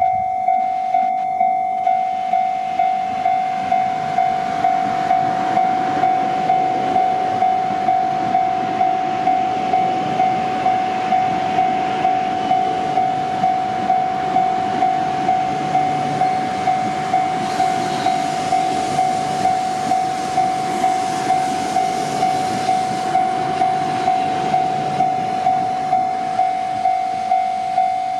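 Level-crossing warning bell ringing steadily at about two strokes a second, while an E6 series Komachi Shinkansen train passes through the crossing with a rising and fading rumble of wheels on rails. The train noise is loudest for several seconds past the middle.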